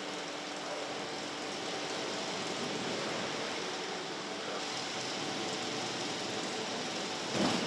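Steady car-factory assembly hall noise: an even hiss with a faint steady machine hum underneath, and a short louder rush of noise near the end.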